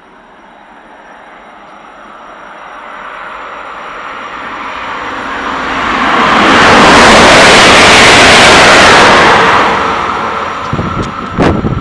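Double-deck electric train, a Stadler KISS of the Soko service, passing through the station at speed: a rush of wheel and air noise swells as it nears, holds loudest for about three seconds as it goes by, then fades as it runs away. A few sharp knocks come near the end.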